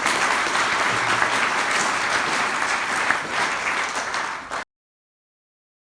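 Audience applauding, a dense spread of clapping that cuts off suddenly about four and a half seconds in.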